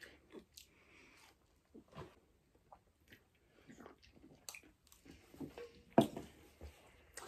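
Close-miked chewing and mouth sounds of someone eating, with scattered small clicks. About six seconds in comes a sharp knock, the loudest sound, as an aluminium soda can is set down on the table.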